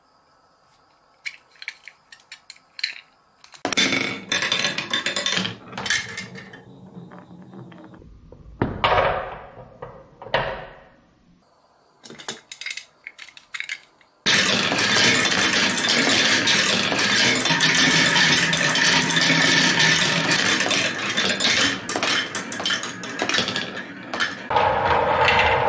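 Scattered small clicks and brief rattles, then, about fourteen seconds in, marbles rolling and clattering down wooden wavy-groove tracks in a continuous loud rattle.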